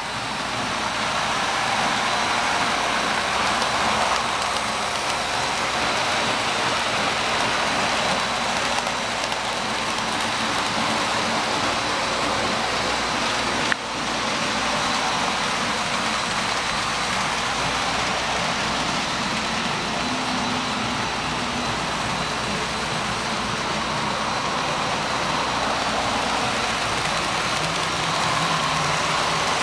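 Model freight train running on the layout: a steady rolling whirr of wheels on track and motors, with one sharp click about fourteen seconds in.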